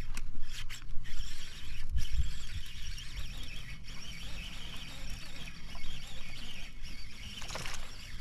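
Baitcasting reel cranked in, its gears whirring, then a cast near the end with the spool spinning out line. Wind rumbles low on the microphone.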